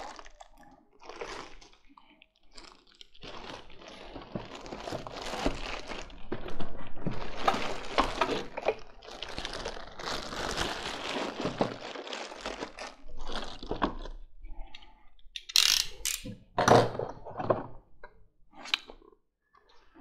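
Clear plastic packaging bag crinkling and rustling as it is handled and pulled off, for several seconds. This is followed by a few sharp knocks near the end.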